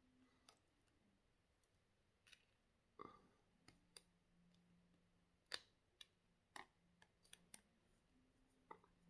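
Faint, irregular light clicks and taps, about a dozen spread unevenly, from a small screwdriver and tiny phone screws being handled while the screws of a Samsung A40's middle frame are taken out.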